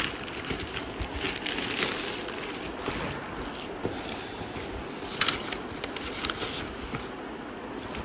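Plastic courier mailer bag crinkling and rustling as a cardboard shoebox is pulled out of it and handled, in irregular crackles with a few sharper ones past the middle.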